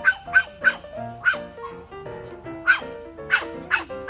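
A small dog barking in short, sharp, high yaps: three in quick succession at the start, one about a second in, then a cluster of four near the end. Background music plays underneath.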